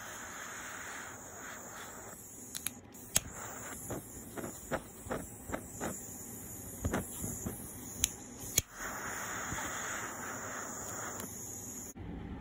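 Butane torch lighter's jet flame hissing as it chars whiskey-soaked wood chips, with a scatter of sharp crackles and clicks in the middle. The hiss is strongest near the start and again toward the end, then cuts off suddenly.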